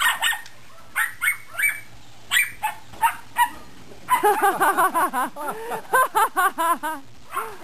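Dogs barking: a few separate sharp barks, then about four seconds in a fast run of high yips.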